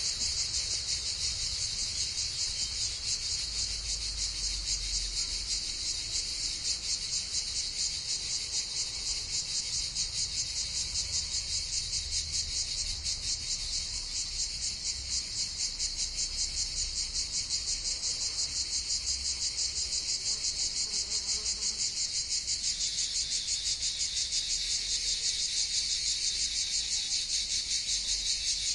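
Cicadas in chorus, a steady high-pitched buzz with a fast pulsing throb, over a faint low rumble.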